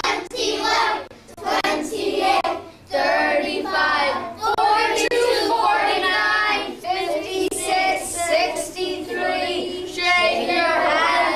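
A class of young children singing a times-tables song together in unison, with short breaks between phrases.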